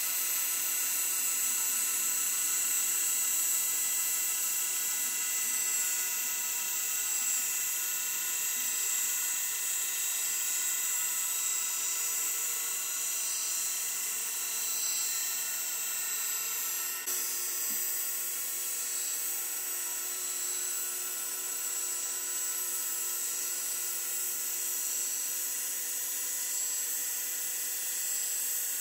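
Belt-type surface grinder running steadily, its electric motor and abrasive belt over the contact wheel giving a constant high whine while the CNC table carries the workpiece under the wheel. One small click about two-thirds of the way through.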